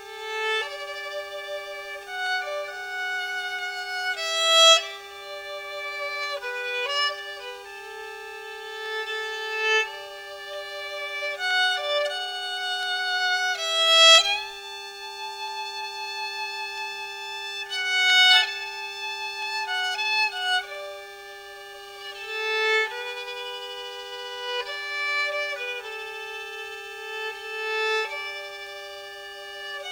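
Solo violin playing a slow melody of long, held notes. Underneath it runs a steady, unchanging tone, the sound interference affecting the service's audio.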